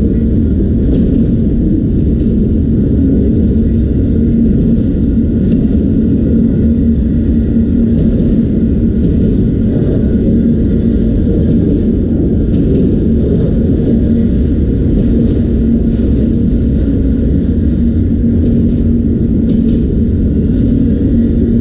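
Freight train of autorack cars rolling past close by, a loud, steady low rumble with faint clicks. No horn sounds.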